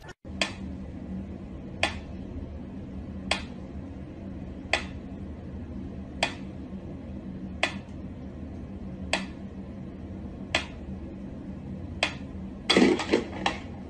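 Mechanical pyramid metronome ticking slowly and evenly, about one sharp tick every second and a half. Near the end the regular ticking gives way to a louder jumble of sound.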